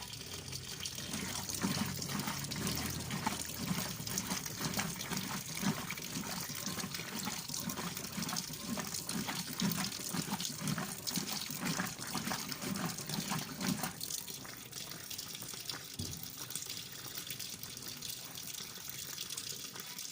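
Washing machine churning its load, water sloshing with a pulsing, chugging rhythm; the churning stops about fourteen seconds in, leaving a steady rush of water.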